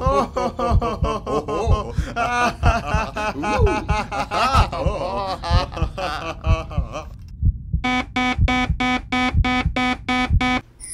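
Theatrical laughter over a low, throbbing pulse. About three seconds before the end the laughter stops, and a synthesized tone beeps in quick, even pulses, about four a second.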